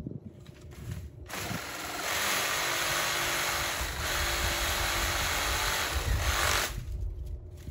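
A handheld power saw runs steadily for about five seconds, cutting dead frond bases from a small fan palm, then stops.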